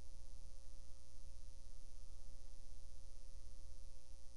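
A steady low electrical hum, with a few faint steady tones above it: room tone dominated by mains hum.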